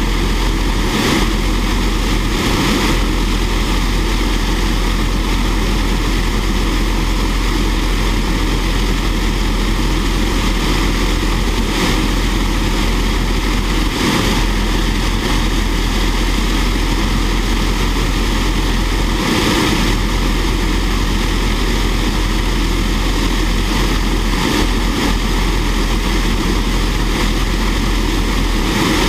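Fairchild J44 turbojet running steadily on a ground test stand: a loud, even rush that holds the same level throughout, with no spool-up or wind-down.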